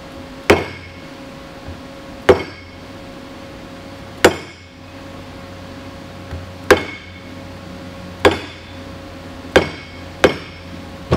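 Mallet tapping a pilot bushing to drive a new crankshaft seal into a machined transmission adapter plate, about eight sharp strikes a second or two apart, each with a short ring.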